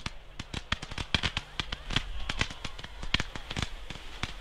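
Fireworks display: a rapid, irregular series of sharp bangs and cracks, several a second, as a volley of low fireworks with sparking trails is fired.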